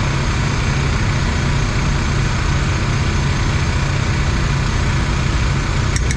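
Predator 1400 inverter generator's small petrol engine running steadily at close range. A couple of light clicks come near the end as a spoon touches the rice-cooker pot.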